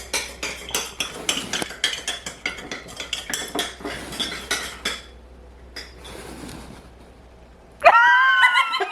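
Rapid clinking of utensils against dishes in a kitchen for about five seconds. Near the end a loud, high-pitched vocal squeal sweeps up and holds.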